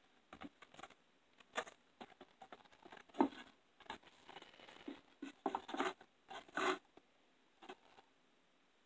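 Paper and cardboard being handled: irregular rustles, scrapes and light knocks as posters are taken out of a cardboard poster portfolio.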